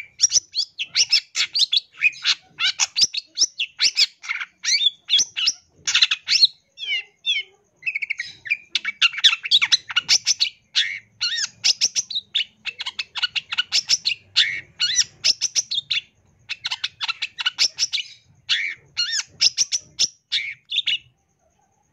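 Long-tailed shrike (cendet) singing a rapid, varied song of quick chirps, slurs and trills, broken by a few short pauses.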